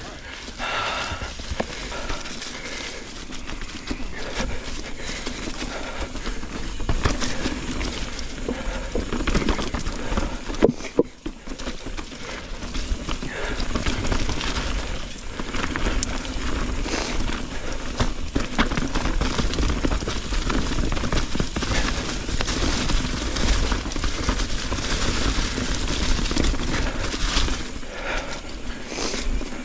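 Mountain bike rolling along a trail covered in dry fallen leaves: the tyres crackle through the leaves over dirt and rock, with frequent knocks and rattles from the bike over bumps and a steady low rumble. The sound drops briefly about eleven seconds in.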